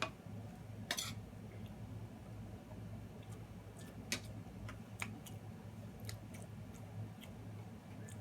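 A person eating close to the microphone: scattered small clicks and mouth sounds, about one or two a second, over a low steady hum.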